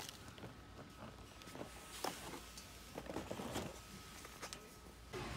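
Plastic clamshell pastry container handled and set into a wire shopping cart: scattered clicks and crinkles, the sharpest about two seconds in, over faint steady background noise.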